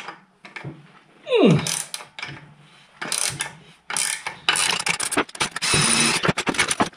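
Makita power tool run in several bursts of rapid clicking, turning the nut on threaded rod to draw a frozen bush into the mini digger's dipper arm. About a second in there is a falling whine as the tool winds down.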